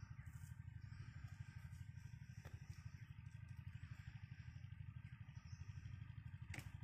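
Topland 5 HP pump-set engine running steadily with a fast, even beat, driving a water pump that draws through a suction hose from a borehole.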